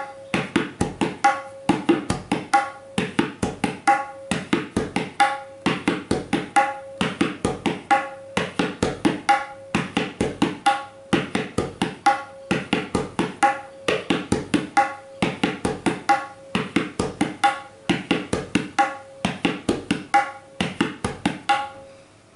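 A pair of tabla (dayan and bayan) played fast by hand in the repeating Tere Kete Ta stroke pattern. A ringing tone from the tuned dayan head comes back once each cycle, and the playing stops at the very end.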